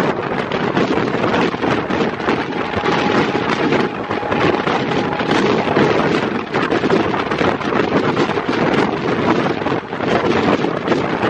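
Heavy wind buffeting the microphone of a camera held out of a fast-moving train, over the train's steady running rumble.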